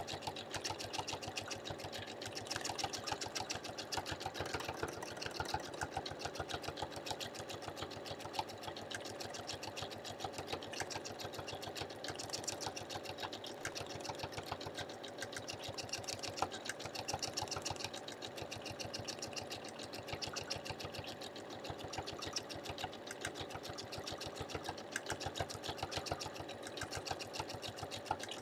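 Domestic sewing machine stitching steadily at speed during free-motion quilting, its needle and spring-loaded hopping foot making a rapid, even ticking run.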